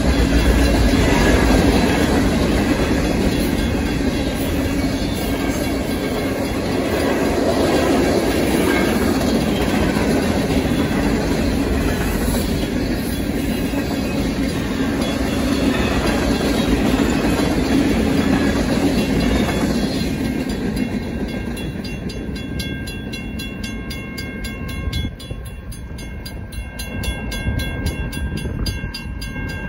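Freight cars of a Union Pacific manifest train rolling through a grade crossing, wheels clacking over the rails, until the last car clears about twenty seconds in. The crossing signal bells then ring on alone with rapid, even strikes.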